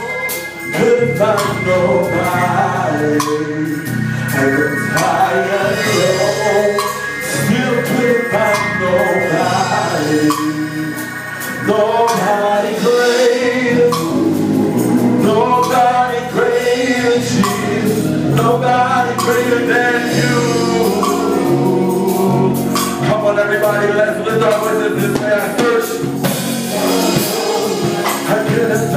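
A gospel group singing with organ, with frequent sharp percussive hits through the music.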